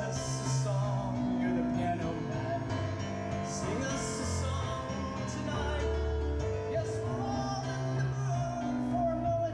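Live keyboard music through a stage PA: held bass notes under a wavering lead melody line.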